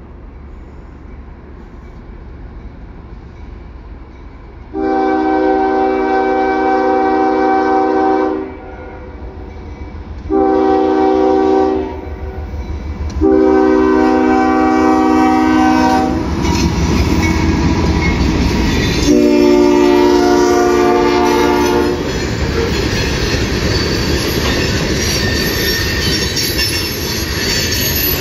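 Diesel freight locomotive sounding its multi-note air horn for a grade crossing: four loud blasts, the second shorter than the rest. From about halfway through, the locomotives' heavy rumble passes close by, and the freight cars' wheels clatter along the rails.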